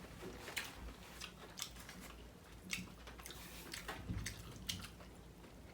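Close-miked mouth sounds of someone chewing sushi: scattered faint wet clicks and smacks.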